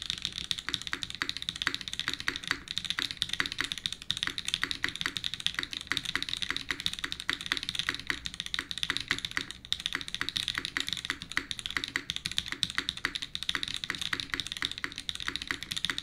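Continuous fast typing on a Bulwark custom mechanical keyboard with Mode Obscura switches on an aluminium plate, its silicone dampening piece removed: a dense, unbroken run of keystroke clacks, brightest in the upper range.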